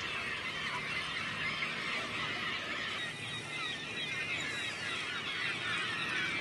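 A flock of birds calling: many short overlapping calls, steady throughout.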